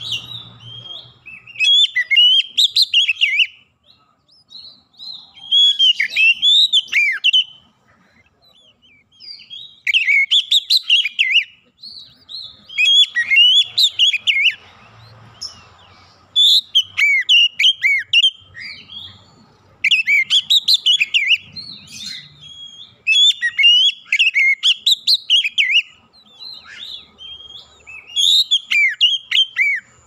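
Oriental magpie-robin (kacer) singing: loud phrases of quick rising and falling whistled notes, each a second or two long, repeated every two to three seconds with short pauses between.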